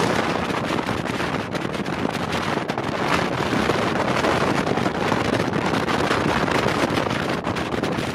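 Wind buffeting the microphone hard over the steady rush of a RIB speedboat running at speed across the water.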